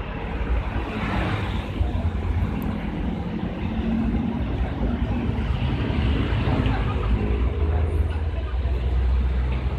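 Road traffic running past steadily, with engines rumbling.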